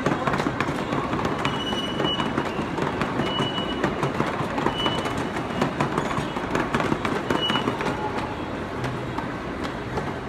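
Miniature ride-on train rolling along its track as the locomotive, open cars and caboose pass, the wheels clicking over the rail joints. A few brief high squeaks come through the rolling sound.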